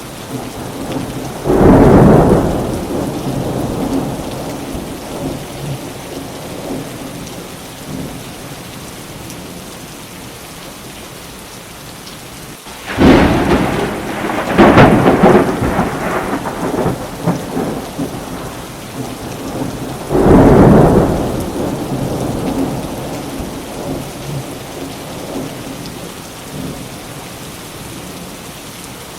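Steady rain with thunder: a thunderclap about two seconds in, a sharp crack about 13 seconds in that rolls on for a few seconds, and another clap about 20 seconds in, each dying away into a low rumble.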